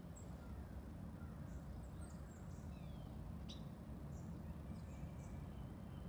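Wild backyard birds giving scattered short, high chirps and a few brief downward-sliding call notes, faint over a steady low rumble.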